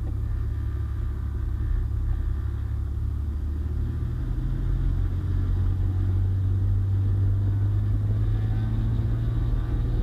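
Cessna 210 Centurion's piston engine and propeller running at low power while the plane taxis onto the runway, a steady low drone that grows a little louder and steadier about four seconds in.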